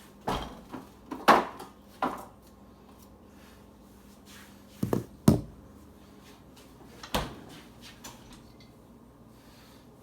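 Kitchen things being handled: about six separate knocks and clunks, three in the first two seconds, a close pair about five seconds in (the loudest), and one more about seven seconds in, with quiet between.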